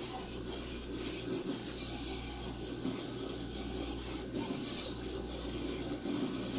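Close, steady rubbing and rustling of hands twisting a section of hair, heard on a clip-on microphone worn on the body, over a steady low hum.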